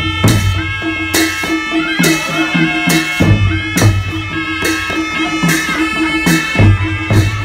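A Nepali Naumati Baja band playing: shehnai-type reed pipes hold a steady, reedy melody over a regular beat of hand-carried barrel drums, with deep drum booms and sharp strikes about once a second.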